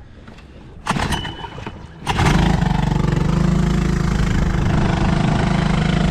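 Small outboard motor being started: a first attempt about a second in, then it catches about two seconds in and runs steadily at idle.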